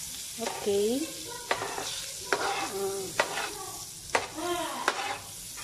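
Margarine sizzling and bubbling in a hot frying pan, with a metal spatula stirring it and clicking against the pan half a dozen times.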